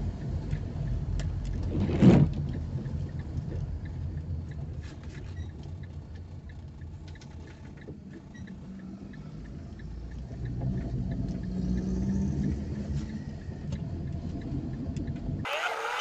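Car driving, heard from inside the cabin: steady engine and road rumble. There is a loud short thump about two seconds in, and the engine note picks up again about ten seconds in. A brief hiss comes just before the end.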